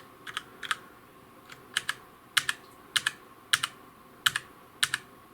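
Keys pressed one at a time on a Redragon Parvati K591 keyboard with low-profile red mechanical switches: separate sharp clicks, many heard as a quick pair of press and release, roughly one key every half second to a second.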